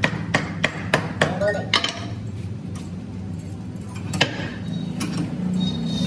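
Hammer blows: a quick run of about seven strikes, roughly three a second, over the first two seconds, then one more strike about four seconds in, over a steady low hum.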